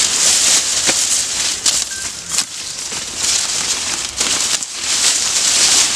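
Dry grass and weeds rustling and crackling as they are hacked at and pulled up by hand with a sickle, with a few sharp snaps.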